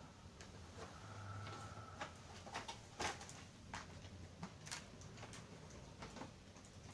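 Faint scattered clicks and light taps from laptop parts being handled and set down, over a faint low hum.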